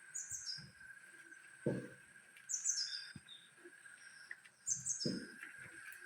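A songbird repeating a short, high phrase of quick falling chirps three times, about every two seconds. Two dull low thumps fall in between, over a steady faint high hum.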